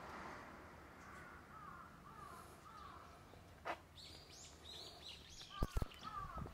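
Birds calling outdoors: a run of repeated calls, then higher chirps from another bird, with a few sharp knocks near the end.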